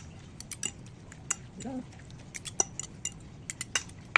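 A utensil clinking and tapping against a bowl in quick, irregular strikes while pickled mustard greens are mixed.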